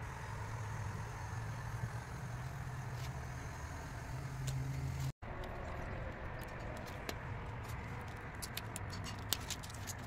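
Light clicks and taps of hands and a blade working wet window-tint film against a car window's glass, more of them in the second half, over a steady low hum. The sound breaks off for an instant about five seconds in.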